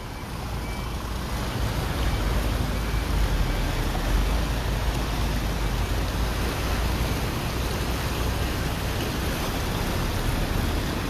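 Floodwater churning and rushing in a steady noisy wash, with a low rumble underneath; it swells over the first couple of seconds, then holds level.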